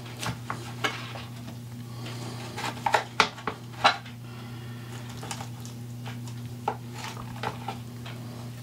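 Chef's knife cutting through smoked pork spare ribs between the bones and knocking on a plastic cutting board: scattered sharp knocks and scrapes, busiest around three to four seconds in.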